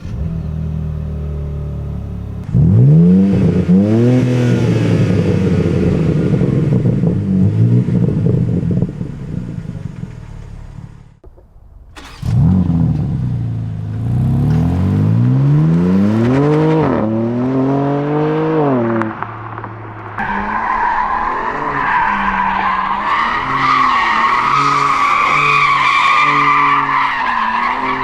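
BMW M4 Competition's 3.0-litre twin-turbo inline-six idling and then being revved in repeated blips, the pitch climbing and falling with each rev. It drops away briefly about eleven seconds in before another run of revs. In the last third the sound changes to a steadier, higher, wavering note.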